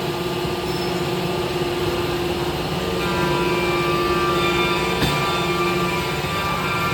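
CNC machine with a 16-tool automatic tool changer running: a steady machine drone with a whining tone. Higher whining tones join about three seconds in, and there is a single sharp click about five seconds in.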